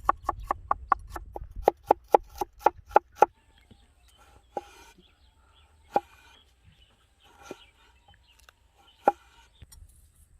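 Knife chopping on a wooden board: a quick, even run of about five strokes a second, then slower single chops a second or more apart.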